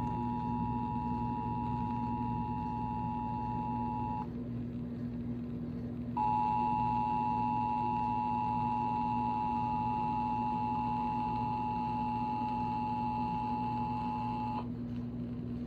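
Emergency Alert System attention signal broadcast over FM radio: the two-tone alarm, 853 Hz and 960 Hz sounded together as one steady tone. It breaks off about four seconds in, starts again two seconds later, and stops near the end. A steady low hum runs underneath.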